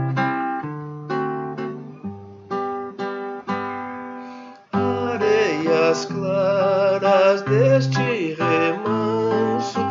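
Acoustic guitar playing the intro of a gentle waltz in separate plucked chords. About five seconds in, the music fills out with a sustained melody line that wavers in pitch.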